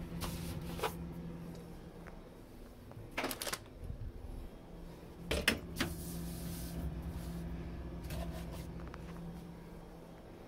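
Food items and containers being handled and set onto refrigerator shelves: short rustles and knocks in four clusters a few seconds apart, over a steady low hum.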